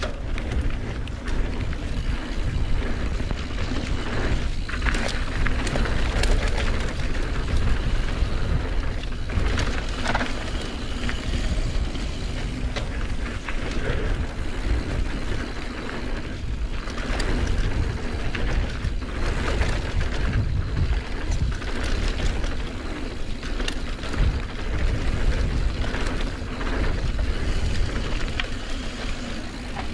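Mountain bike riding down a dirt flow trail: wind rushing over the action camera's microphone, tyre noise and frequent rattles and knocks from the bike over bumps.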